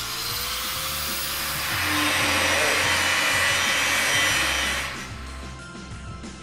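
Handheld angle grinder grinding a metal tube of a race-car space-frame chassis, a steady hissing grind that gets louder about two seconds in and stops about five seconds in. Background music plays underneath.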